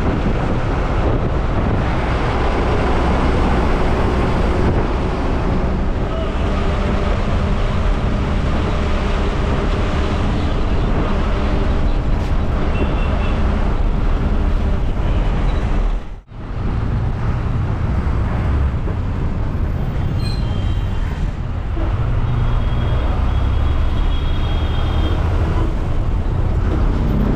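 Engine and road noise of a moving bus heard from inside its cabin: a steady low rumble, breaking off for a moment about sixteen seconds in.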